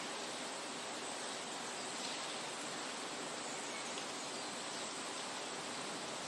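Steady outdoor nature ambience: an even rushing noise that holds level throughout, with a faint high steady tone and a few tiny faint chirps.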